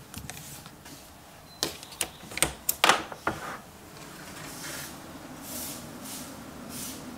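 Several sharp clicks and knocks about one and a half to three and a half seconds in, then a steady faint hiss with a low hum.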